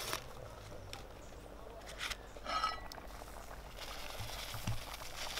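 Faint handling sounds: a foil soup-mix packet being rustled and opened and a metal pot lid being lifted, with a few light clicks and a short louder rustle about two and a half seconds in.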